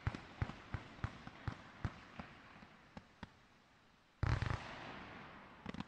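100-shot, 30 mm firework battery firing its last shots: a quick run of sharp pops, about three a second, thinning out. A single much louder bang a little after four seconds dies away over about a second, then a few last pops near the end.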